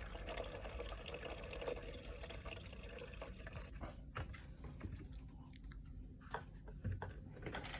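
Vinegar-and-water solution pouring from a glass carafe into a drip coffee maker's water reservoir, a steady trickling splash for about the first three seconds. After that it goes quieter, with a string of light clicks and taps.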